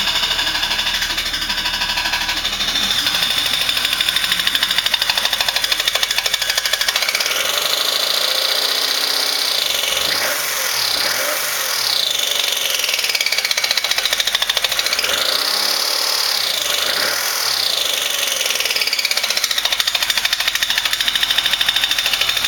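BMW E30 straight-six engine running with a loud, high-pitched screech over it. Around the middle it is revved up and let back down several times, and the screech rises and falls in pitch with the engine speed. The cause is unknown to the owner.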